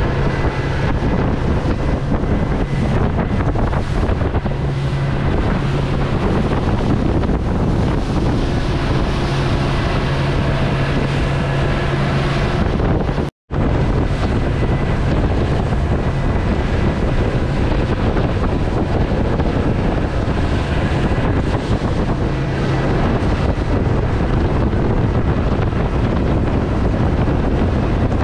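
Suzuki 140 hp four-stroke outboard running steadily at about 4,000 RPM during its break-in, under heavy wind buffeting on the microphone and the rush of water past the hull. The sound cuts out for a split second about halfway through.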